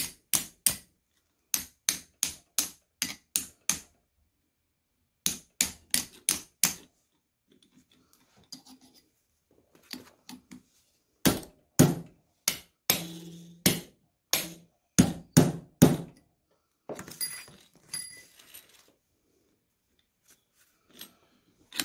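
Metal parts of a starter's Bendix drive clicking and knocking as it is taken apart by hand on a workbench. Quick runs of sharp clicks, then louder knocks about halfway through and a short rattling scrape near the end.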